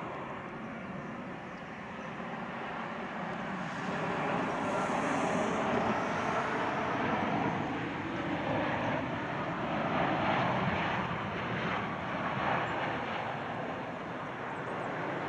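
Boeing 787-9 jet airliner on landing approach passing close by with gear down, its engines giving a steady jet rush. The noise swells about three seconds in, holds loud through the middle, and eases slightly near the end.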